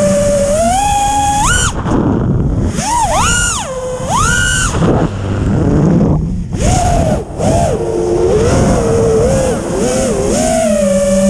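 FPV racing quadcopter's brushless motors and T-Motor 5138 propellers whining, the pitch swooping sharply up and down several times with throttle changes in the middle, then settling to a steady tone near the end. Heard from the onboard camera, with rushing air under the whine.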